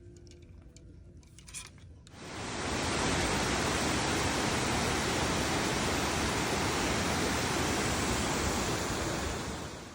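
Steady rushing of a waterfall, fading in about two seconds in and fading out near the end.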